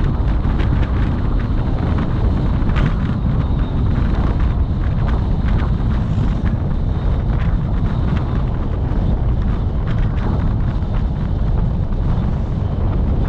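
Wind buffeting the microphone over the steady road rumble of a moving vehicle, with frequent small knocks and rattles.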